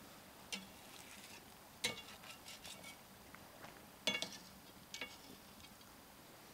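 A metal utensil clinking against cookware several times, each knock ringing briefly; the strongest clinks come about two seconds in and, loudest, about four seconds in.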